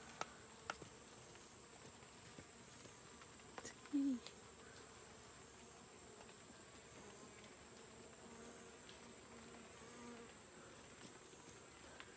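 Bees buzzing faintly and steadily around the entrance of a wooden beehive. About four seconds in, one short, louder buzz dips slightly in pitch, as a bee flies close by. There are a few light clicks near the start.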